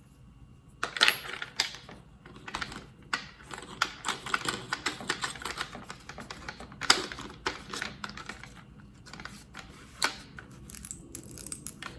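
Angle grinder and felt flap buffing disc being handled and fitted onto the spindle: irregular small clicks and rattles, with a few sharper knocks about a second in, near seven seconds and near ten seconds.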